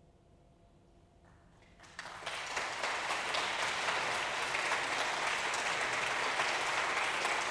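The last faint notes of a chamber ensemble die away, then an audience breaks into applause about two seconds in, a dense, even clapping.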